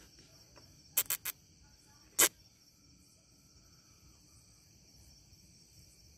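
Steady high-pitched chorus of crickets, with three quick sharp clicks about a second in and a single louder one about two seconds in.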